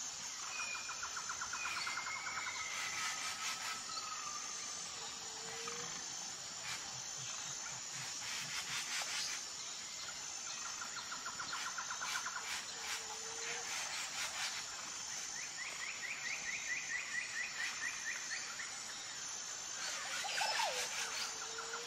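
Birds calling in the background: repeated rapid trills of two to three seconds each, with a few short downward-sliding whistles and chirps, over a steady outdoor hiss. Scattered light clicks come in and out, mostly in the first half.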